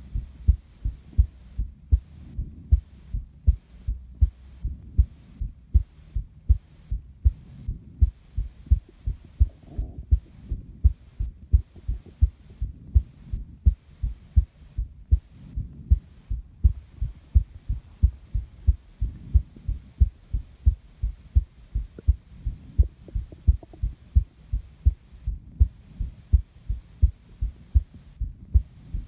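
Human heartbeat picked up against the chest: a steady rhythm of low lub-dub thuds. Soft breathing rises and falls underneath every few seconds.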